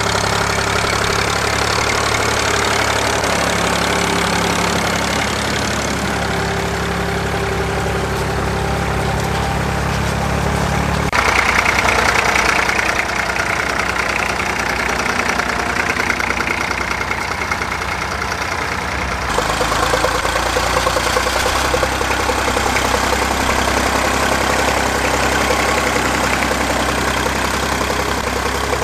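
Vintage Fordson tractor engines running steadily under load while pulling ploughs. The sound changes abruptly twice, about 11 and 19 seconds in, as one tractor's engine gives way to another's.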